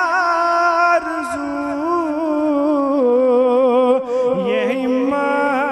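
Male naat reciter singing into a microphone, drawing out long notes with wavering ornaments on a single line of the kalam.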